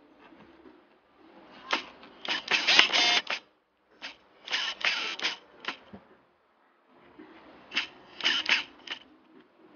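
Paint tins, jars and a brush being handled on a cluttered work table: three short bursts of quick clattering and scraping, with quiet gaps between them.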